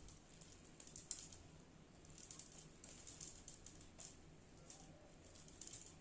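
Faint clusters of light clicks and rustles from hands handling and fitting thin bamboo kite sticks.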